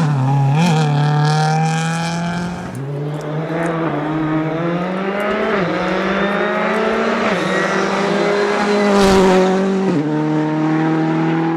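Rally car engine pulling hard through the gears: the note climbs, then drops sharply at each of about four upshifts. A short loud rush of noise comes about nine seconds in.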